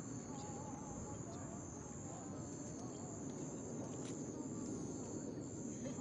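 Night insects trilling steadily at a high pitch, over a low murmur of distant voices and crowd noise.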